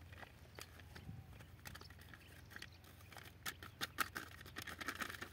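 A hand stirring a heap of wheat seed, the grains rustling in quick small crackles that grow denser and louder from about three seconds in, as treatment powder is worked into the seed.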